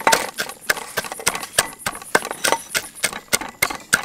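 A long pestle pounding peanuts and spice paste in a large mortar: steady knocks, about three to four a second.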